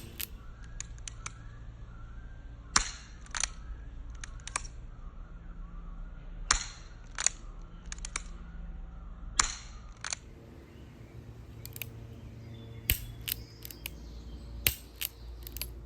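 Revolver being dry-fired, giving sharp mechanical clicks from its action, several in pairs about half a second apart, with a quicker run of clicks near the end. A low steady hum sits underneath.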